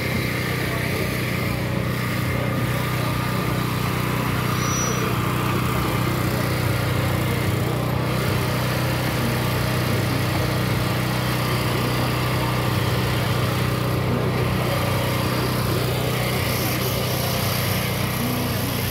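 A small engine running at a steady pitch, with a crowd chattering under it.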